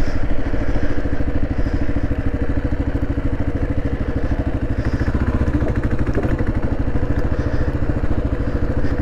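Kawasaki KLR 650's single-cylinder four-stroke engine running steadily with an even pulsing beat as the motorcycle cruises along.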